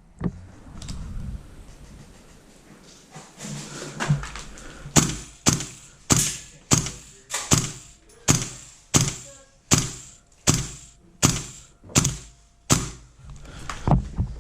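An airsoft rifle firing semi-automatic: about a dozen sharp, loud shots at an even pace of a little over one a second, starting about four seconds in.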